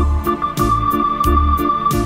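Electronic organ music: a long held high lead note over a steady bass and drum rhythm.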